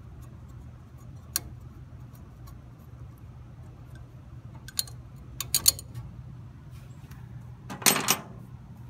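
Scattered sharp metal clicks and clinks as a winch solenoid and its bracket are worked loose with an Allen wrench, a quick run of clicks about halfway through, and the loudest clatter near the end as metal is set down on the rusty steel truck bed. A low steady hum sits underneath.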